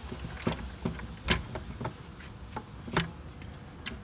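Plastic upper intake plenum knocking and clicking against the engine as it is shifted and worked down into place by hand: a dozen or so irregular sharp taps and knocks.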